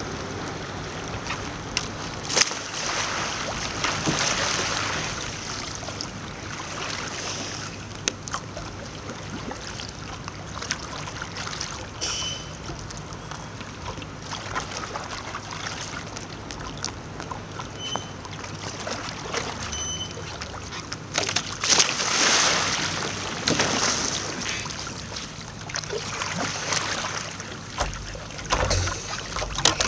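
Kayak paddle dipping and splashing in river water as a sea kayak is paddled slowly, with water sloshing around the hull and a few sharp knocks. The splashing is strongest about two-thirds of the way through.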